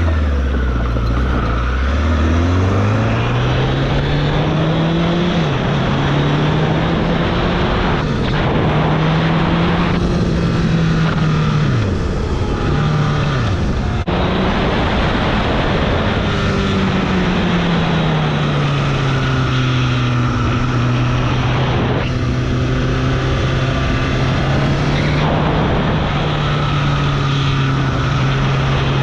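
Motorcycle being ridden away: the engine note rises as it pulls off, drops sharply a few times in the first half as the rider shifts or rolls off the throttle, then holds a steady cruising pitch. Steady rush of wind noise runs underneath.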